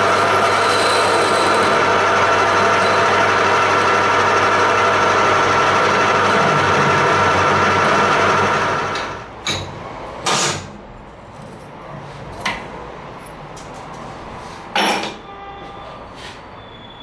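Homemade belt grinder running with a steady motor hum. It stops about nine seconds in, followed by a few sharp knocks and clatters, the loudest at about ten and fifteen seconds.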